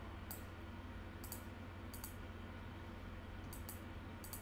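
Faint computer clicks, about five, several coming in quick pairs as double-clicks while files are browsed, over a low steady hum.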